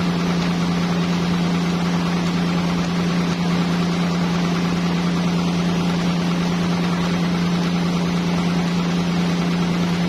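Sawmill machinery running steadily: a constant machine hum with a hiss over it, unchanging throughout.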